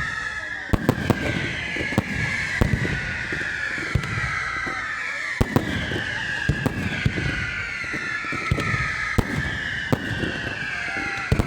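Professional fireworks display: a rapid, irregular string of sharp bangs and reports, several a second, over a continuous rumble. A high whistling tone runs beneath them and keeps sliding slowly downward in pitch.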